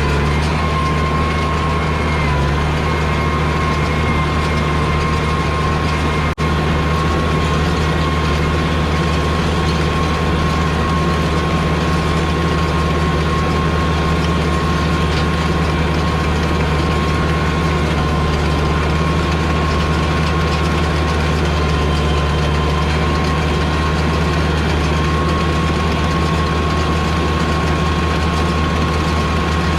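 White 2-135 tractor's diesel engine running steadily under load, driving a New Holland BR770A round baler, with a steady high whine over the engine. There is one momentary dip in the sound about six seconds in.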